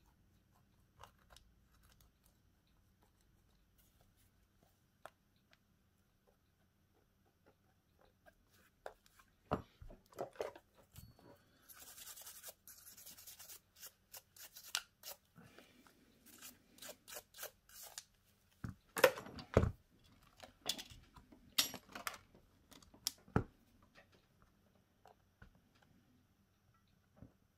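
Hand tools and parts of a Cat S60 phone being handled during a battery replacement: scattered small clicks and taps, loudest a little before twenty seconds in, with a short tearing sound about twelve seconds in.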